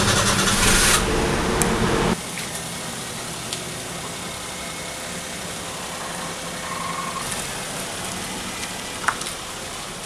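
Car engine idling, loud and close for about two seconds, then quieter and steady after a sudden drop. A short sharp click near the end.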